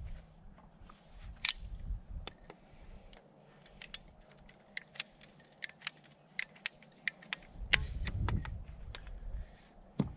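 Ratcheting PVC pipe cutter clicking shut through a white PVC pipe, a quick run of sharp clicks about three a second that ends with the cut; a few single clicks come earlier and a low handling rumble follows.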